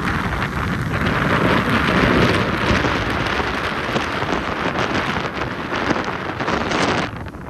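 Heavy storm surf breaking and rushing in a rough sea, with wind buffeting the microphone; the roar drops off suddenly near the end.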